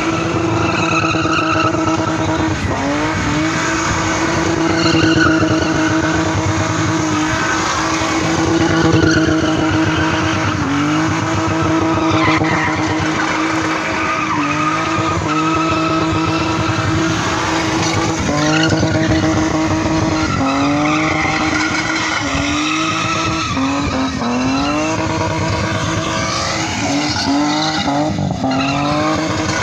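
Car engine held at high revs as it spins its rear tyres in doughnuts, with tyre squeal. The engine note keeps dipping and climbing back up, more often in the second half.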